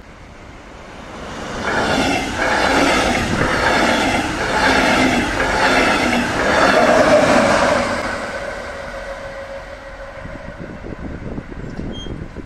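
Red DB Regio double-deck passenger train, with an electric locomotive at the rear, passing at speed: the sound swells after about a second and a half into a rhythmic clatter of wheels over the track as the coaches go by, with a steady hum as the locomotive passes, then dies away as the train recedes.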